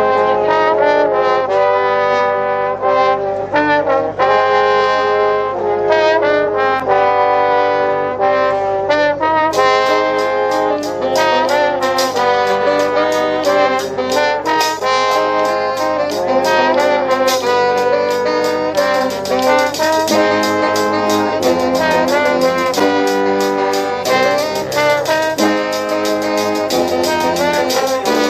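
Brass band playing live, trombones and trumpets in full chords and melody. A steady percussion beat comes in about ten seconds in.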